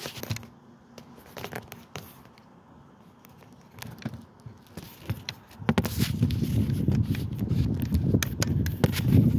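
Scattered small clicks and scrapes from tweezers and hand-held tools handling a transponder chip on a bench. From about six seconds in, a loud, uneven low rumble of wind on the microphone comes in.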